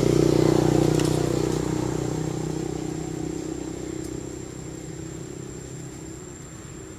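A motor vehicle's engine running with a steady hum, loudest near the start and fading steadily as it moves away.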